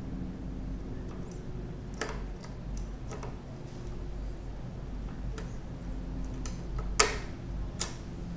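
Scattered light metallic clicks and taps from a hand tool and the cam gear being fitted onto the cam chain of a Honda Monkey's cylinder head, with a sharper click about seven seconds in. A low steady hum runs underneath.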